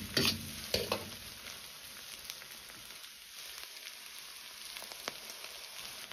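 Soybeans frying in oil in a wok over medium-low heat with a steady sizzle as their excess water cooks off, with a metal ladle scraping and tossing them twice in the first second.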